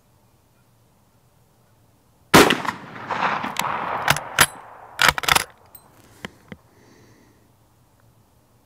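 A single shot from an 11mm Mauser Model 71/84 rifle about two seconds in, its report rolling back across the field for a couple of seconds. This is followed by a series of sharp metallic clacks and smaller clicks as the bolt is worked to eject the spent case and chamber the next round.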